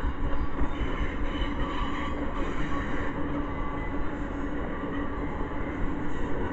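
Freight train of double-stack container well cars rolling past close by: a steady, continuous noise of steel wheels running on the rails.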